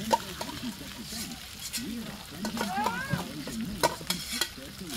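A spoon scraping and knocking against the inside of an aluminium rice pot as cooked rice is scooped out, with a few sharp metallic clicks.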